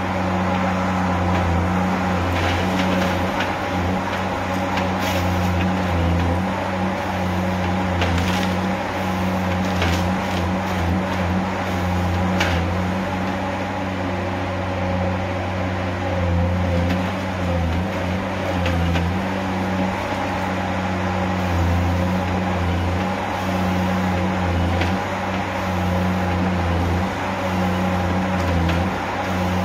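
Tigercat H822C tracked harvester's diesel engine and hydraulics running steadily under load while its Log Max 7000XT head works a white pine log, with a few sharp knocks in the first half.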